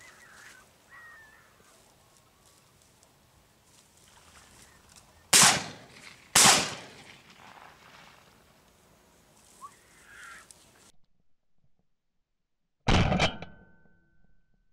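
Three shotgun shots at ducks: two about a second apart around the middle, then, after a short silence, a third followed by a brief ringing tone.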